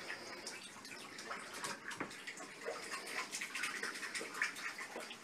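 Bath water splashing and dripping lightly in a tub full of bubble-bath foam, with irregular small clicks and slaps.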